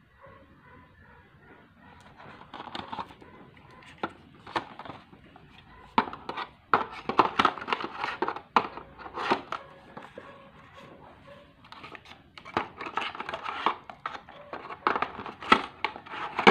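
Crinkling and rustling handling noise in irregular bursts, with sharp little clicks, busiest in the second half.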